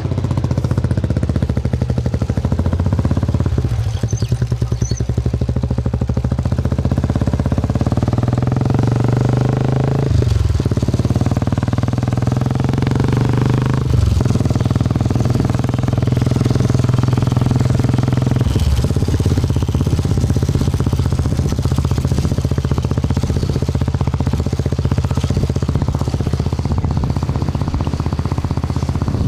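Royal Enfield Bullet single-cylinder motorcycle engine running through an aftermarket silencer, a steady pulsing exhaust note with a few brief throttle changes along the way.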